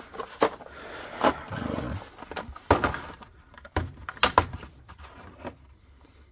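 Metal hand tools clinking and knocking as Torx bits and sockets are picked through and handled, a scattered series of sharp clicks over several seconds.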